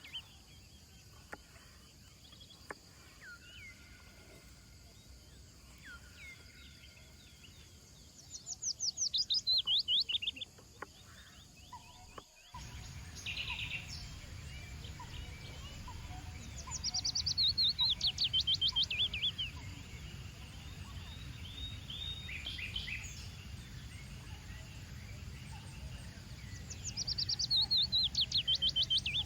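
A songbird singing the same short song three times, each a quick run of falling chirps lasting about two seconds, with a few soft calls between. About twelve seconds in, the background changes abruptly to a steady low rumble.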